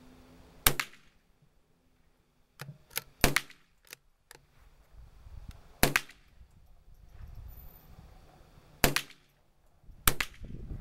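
Savage bolt-action .22 rifle firing about five sharp shots, two to three seconds apart, with lighter clicks between some of them.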